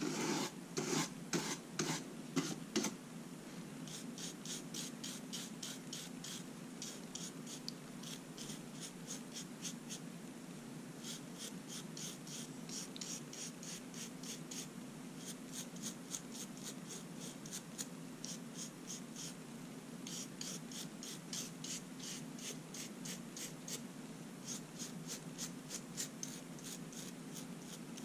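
Fingernails being filed with a nail file in quick back-and-forth strokes, several a second, heavier in the first few seconds and then lighter, in runs with short pauses.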